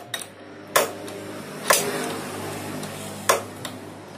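Metal wrench clinking on the injector pipe's union nut as it is tightened at the injector of a Yanmar diesel engine: three sharp metallic clicks, with a faint steady hum underneath.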